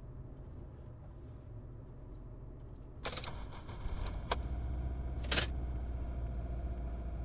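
Sharp mechanical clicks and knocks inside a car, over a low rumble. A cluster of quick clicks comes about three seconds in, then two single clicks about a second apart, while the low hum grows a little louder.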